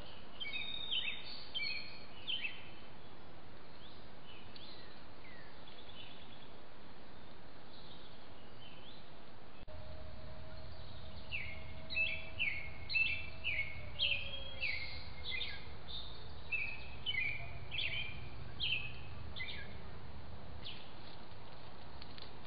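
Wild birds chirping and calling in woodland, short repeated chirps in a couple of bursts, over the steady hiss of a trail camera's microphone.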